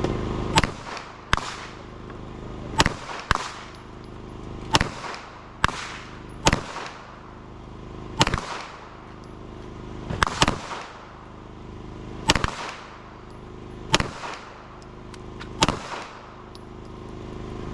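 9mm semi-automatic pistol fired slowly, about a dozen single shots at uneven intervals of one to two seconds, each sharp crack trailing off in a short echo. A steady low hum sits underneath between the shots.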